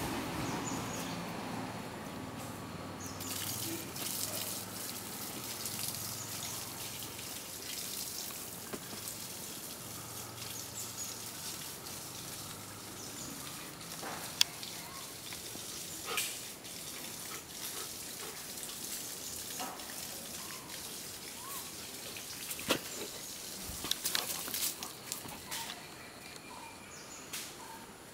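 Steady outdoor background hiss with scattered sharp clicks and knocks, the sharpest about halfway through and several more near the end.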